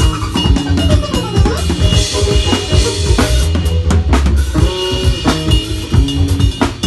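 Drum kit played in a sound check: busy kick and snare hits, several a second, over sustained low bass notes.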